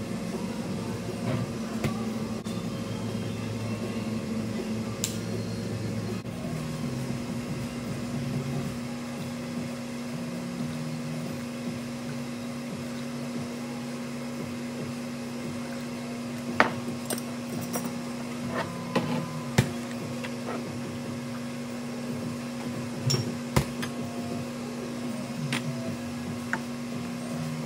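A steady machine hum with a few sharp clicks and clinks, most of them in the second half.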